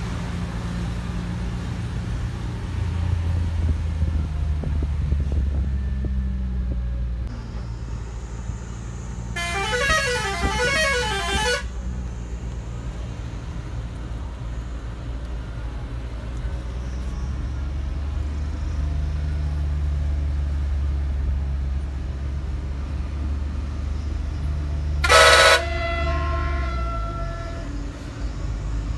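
A bus engine runs steadily with a low drone. About a third of the way in, a warbling horn sounds for about two seconds, its pitch swinging up and down several times. Near the end, one short, loud horn blast sounds.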